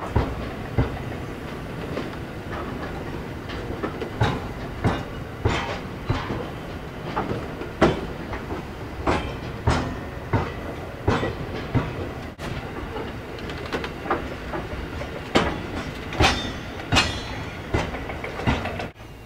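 Grain hopper wagons of a narrow-gauge grain train rolling past, their wheels knocking over the rail joints in a regular clickety-clack over a steady rumble.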